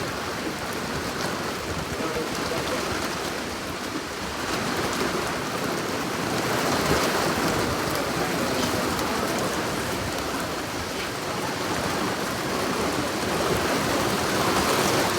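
Steady rain falling, an even hiss sprinkled with fine ticks throughout.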